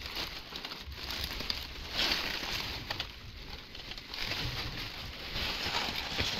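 Dry sugarcane leaves rustling and crackling, in uneven swells every second or two with small clicks among them.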